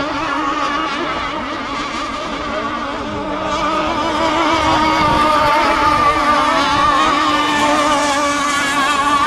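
Several radio-controlled sport hydro racing boats running flat out together, their motors making overlapping whines that waver in pitch; the sound grows louder about halfway through as the boats pass close.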